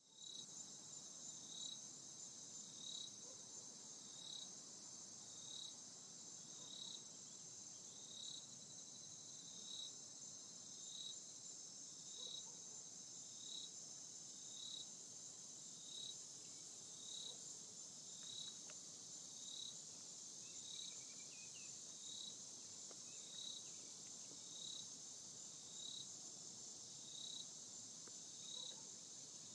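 Faint insect chorus: a steady high-pitched trill, with a second, lower chirp repeating evenly about every second and a half.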